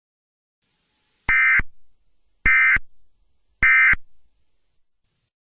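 Emergency Alert System digital data tones: three short, screechy bursts of the SAME end-of-message code, each about a third of a second long and about a second apart, marking the end of the alert.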